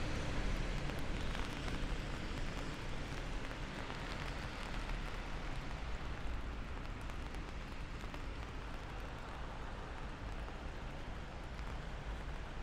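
Steady rain falling on pavement, with scattered drip ticks and a low rumble underneath.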